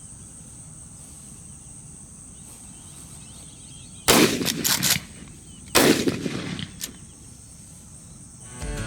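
Two 12-gauge shotgun shots about a second and a half apart, each followed by a rolling echo, over a steady high-pitched insect chorus.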